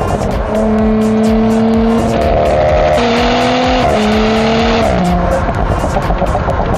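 Audi S4 engine running under load at steady revs, its note holding one pitch, stepping briefly higher about three seconds in and settling back a second later, over a steady low rumble.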